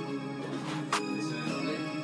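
Background music with a steady beat: a sharp percussive hit about once a second over held chords.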